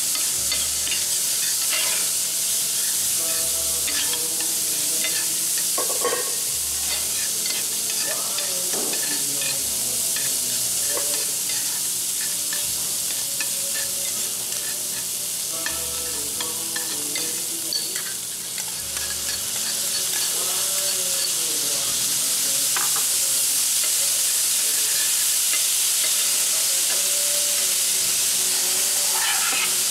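Fried rice sizzling on a hot teppanyaki griddle, steady hissing throughout, with metal spatulas scraping and tapping against the plate as the rice is stirred and turned.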